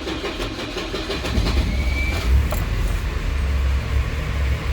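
ZMZ-405 four-cylinder petrol engine of a GAZelle idling just after being started on fresh oil and a new filter, a steady low rumble that grows heavier about a second in.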